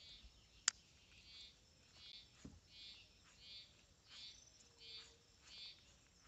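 A small animal's short, faint, buzzy call repeating about every two-thirds of a second. A single sharp click near the start stands out above it.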